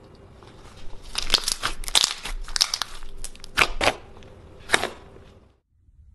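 Glossy slime being pressed and folded by hand, crackling with sharp pops of trapped air, starting about a second in and cutting off abruptly near the end.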